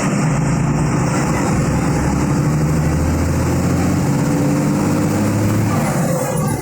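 Diesel engine of a Volkswagen 17.210 EOD Euro III bus chassis running steadily with a deep, even drone.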